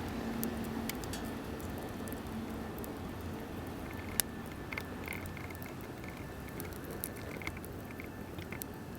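Wood fire crackling in a Solo Stove: scattered sharp pops and small ticks, one louder pop about four seconds in, over a steady low rush.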